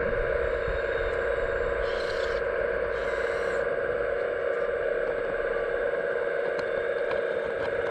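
Hydraulic pump of a 1/15-scale RC construction model running with a steady whine. Two short noisy bursts come about two and three seconds in.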